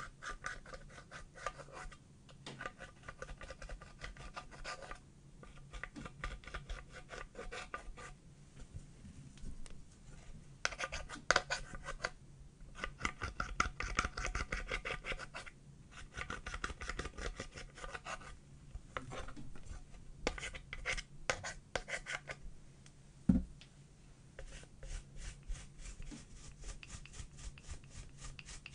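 A metal-tipped tool scraping pressed eyeshadow powder out of a palette's metal pans: bursts of quick, rhythmic scratching strokes with short pauses between them. A single knock comes about four-fifths of the way through.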